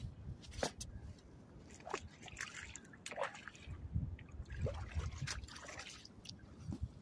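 Small irregular splashes and trickling water: fish thrashing in a keepnet in shallow river water.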